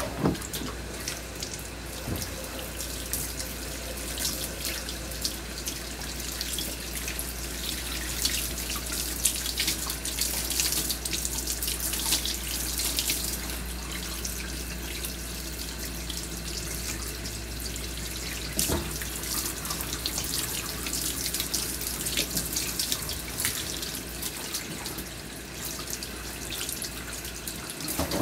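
Water spraying steadily from a hand-held hose sprayer nozzle and splashing off a wet, shampooed dog's coat into the tub as it is rinsed. A low steady hum runs underneath and stops shortly before the end.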